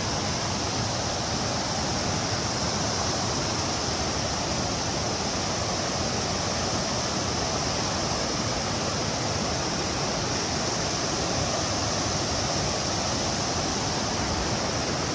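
Steady rush of falling water from a waterfall, an even, unbroken wash of noise.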